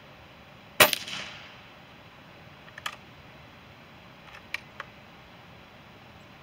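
A single shot from an Umarex Gauntlet .22 PCP air rifle: a sharp crack about a second in with a short ringing tail. A few quieter metallic clicks follow as the bolt is cycled to load the next pellet from the magazine.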